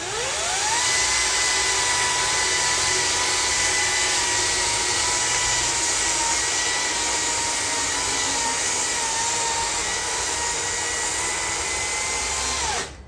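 An electric motor-driven power tool, such as a blower, spinning up with a rising whine, running at a steady high-pitched whine with a rushing noise for about twelve seconds, then winding down as it is switched off.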